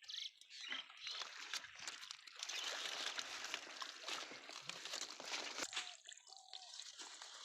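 Hands splashing and squelching through shallow muddy water: a crackling wash of water noise with scattered sharp clicks, heaviest in the middle and easing off near the end.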